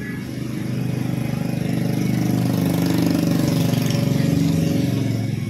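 A motor vehicle engine running close by with a steady low hum, growing louder over a few seconds, then dropping off sharply near the end.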